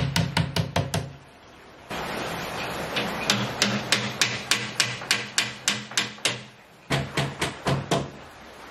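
Background music: a quick, even ticking beat, about four ticks a second, over low sustained bass notes. It breaks off briefly about a second in and again shortly before seven seconds.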